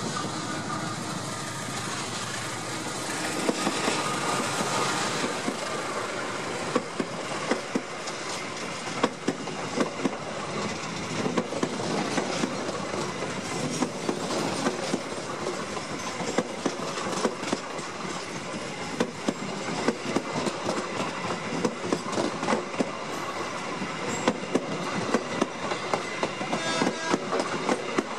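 A passenger train passing close by: the GE CM20EMP diesel locomotive goes by in the first several seconds, then a long line of stainless-steel coaches rolls past with the wheels clacking over the rail joints in a steady run of sharp clicks over a rolling rumble.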